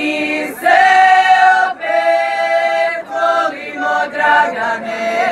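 Group of women singing a Herzegovinian bećarac unaccompanied, in chorus, drawing out long held notes of about a second each.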